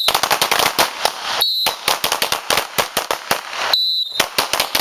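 Several handguns firing rapid, overlapping strings of shots. Short whistle blasts just at the start, about a second and a half in and about four seconds in cue each string of four shots.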